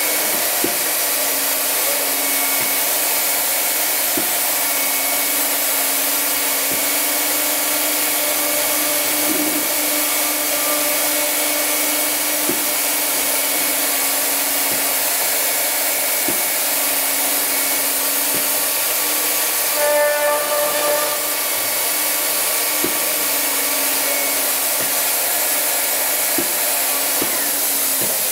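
Kval MLX CNC door machine's router spindles running steadily while routing lock-side pockets into a door, a constant high rush over a low hum with a few faint clicks.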